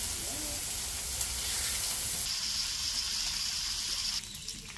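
Bacon strips sizzling on a flat-top griddle: a steady frying hiss whose tone shifts a little past halfway and which gets quieter near the end.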